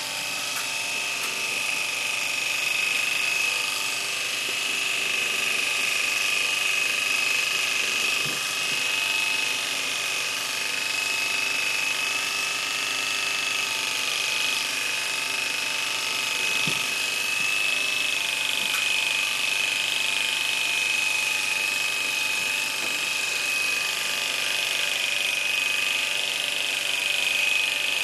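Electric pet clipper running with a steady high-pitched whine as its blade shaves the fur on a dog's ear and head.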